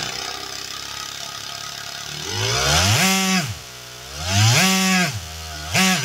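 Small 3D-printed single-cylinder compressed-air engine running on ball bearings: first an even, noisy buzz, then it revs up to a high whine and drops back down, three times over, the third starting near the end. The engine reaches about 11,000 RPM.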